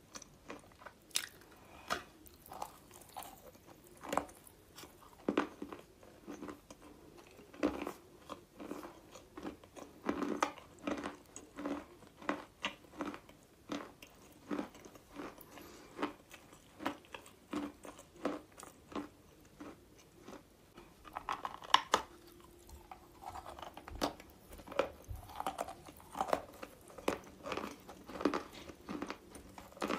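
Close-miked biting and chewing of dry chalk and clay, with sharp crisp crunches about once or twice a second between softer chewing. One crunch about two-thirds of the way through is louder than the rest.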